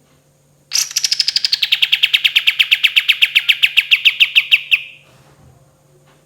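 A kapas tembak songbird giving its 'tembakan' roll: one long rapid trill of about eight sharp notes a second. It starts high, drops and then holds level, and cuts off after about four seconds.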